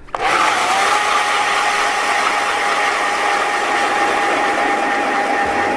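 ION battery-powered electric ice auger drilling through lake ice: a steady motor whine over the grinding hiss of the bit cutting ice. It starts suddenly, rises slightly in pitch as it spins up, then holds steady and begins to wind down at the very end.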